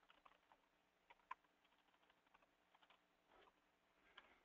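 Near silence with a few faint, scattered computer keyboard key clicks.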